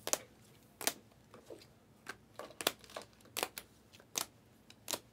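Panini Select basketball trading cards being flicked one after another off a stack in the hand. Each card gives a short, sharp snap, roughly two a second at uneven intervals.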